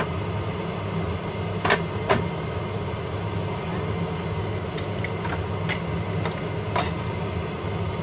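Kitchen range-hood extractor fan running steadily on high, a low even hum. A few light clicks and knocks come from the plastic blender jar and containers being handled.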